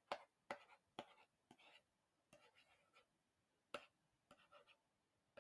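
Faint writing on a small board: a run of short scratchy strokes with sharp taps between them as a word is written out by hand.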